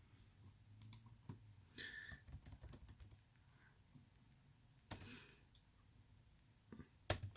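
Faint, scattered clicks and taps of a computer keyboard and mouse, with a quick run of taps about two seconds in and a sharp click near the end.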